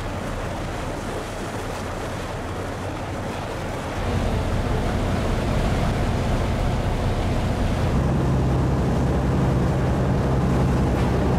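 A fishing boat under way: its engine runs with a steady low hum over the rush of water and wind on the microphone. It gets louder about four seconds in, and the engine hum is strongest from about eight seconds in.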